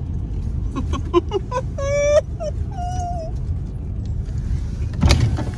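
A dog whimpering: a run of short high yips, then two longer, steady whines, over the low rumble of a car idling. A brief loud knock comes near the end.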